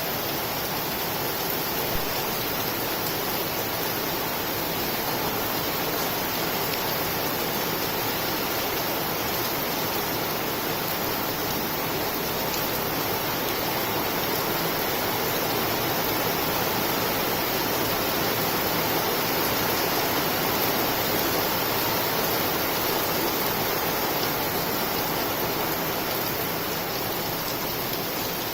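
Steady rain falling, an even unbroken hiss with no bird calls standing out.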